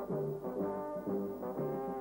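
Brass band music: several brass instruments playing a tune together, the notes changing several times a second.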